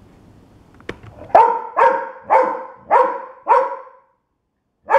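A dog barking: a run of five loud barks about two a second, then a single bark near the end.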